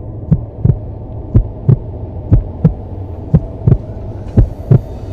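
Heartbeat sound effect: paired low thumps, lub-dub, about one beat a second, over a steady low hum. A faint hiss comes in near the end.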